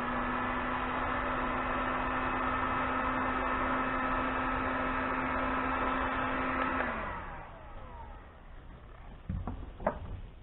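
Electric heat gun running with a steady fan whine while shrinking heat-shrink tubing, switched off about seven seconds in, its whine falling as the fan winds down. Two short knocks follow near the end.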